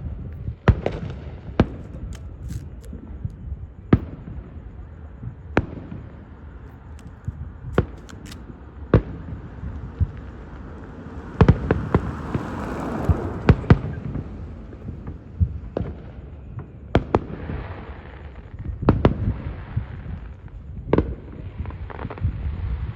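Fireworks display: aerial shells bursting in sharp bangs at irregular intervals, more than a dozen in all, with a denser cluster of bursts about halfway through.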